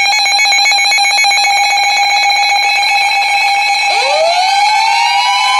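Weather radio alert tones: a steady, buzzy alarm tone. About four seconds in, a second tone joins it, slides quickly up in pitch and then holds just above the first, sounding the start of an emergency alert.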